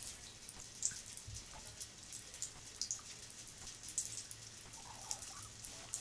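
Thin stream of water from a bathtub tap trickling into the tub, with irregular drip-like splashes a few times a second.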